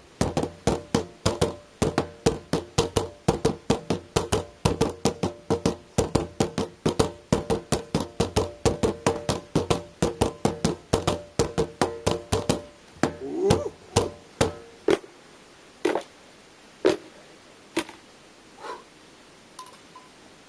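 Nunchaku drumming on the lids of plastic bins: fast sharp knocks at about four a second, with a steady ringing underneath. Around twelve seconds in the strikes thin out to a few single hits, and they stop near the end.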